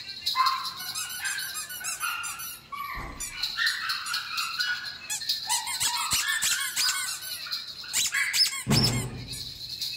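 Rubber squeaky dog toys squeaking in short, irregular bursts as puppies bite and chew them, with a couple of dull bumps.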